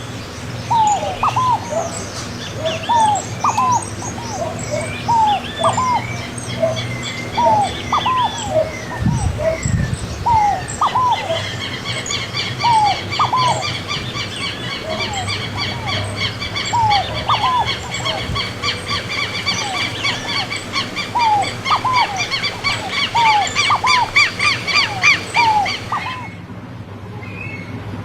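Small birds calling: a short, hooked chirp repeats about once a second throughout. A fast, high-pitched twittering joins in about eleven seconds in, and the high twittering stops abruptly near the end.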